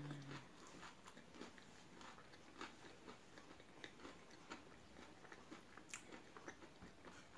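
Close-up chewing of crunchy Pocky biscuit sticks: faint, irregular crunches a few times a second. A brief closed-mouth hum falls away right at the start.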